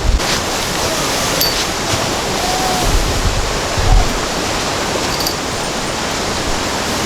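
River water rushing steadily, an even wash of noise, with a couple of low thumps about three and four seconds in.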